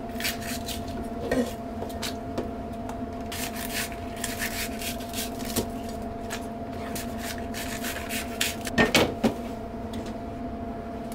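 Scattered knocks and rustles of food preparation at a kitchen counter, with a few sharper knocks together about nine seconds in, over a steady hum.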